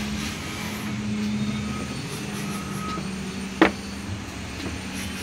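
Steady low machine hum with one sharp knock about three and a half seconds in.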